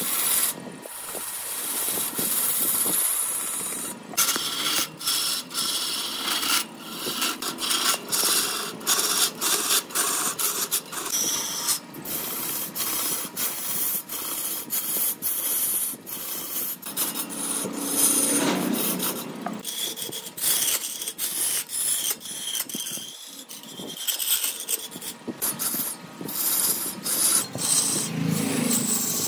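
A tool scraping and rasping against wood in many short, irregular strokes.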